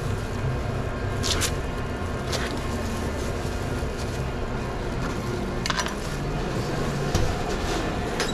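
Sub rolls being sliced lengthwise with a knife: a few short crisp scrapes through the crust, over a steady low background hum.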